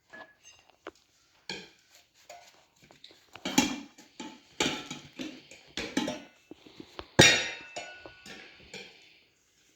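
Metal tire levers knocking, clinking and scraping against a dirt-bike wheel rim as a stiff mousse-fitted tire is levered onto it, in irregular strokes with the loudest clank about seven seconds in.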